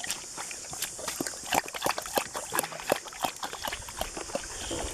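Dogs moving about on the ground, with many irregular short scuffs and clicks of feet, over a steady high hiss.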